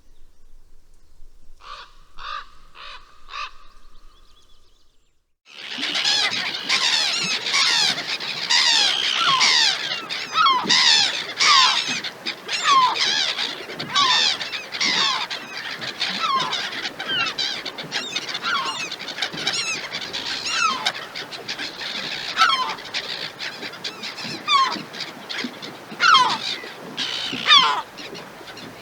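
A crow caws about five times in a quick series. After a brief pause, a large flock of birds suddenly breaks into a dense chorus of loud calls over one another, many short notes sliding in pitch.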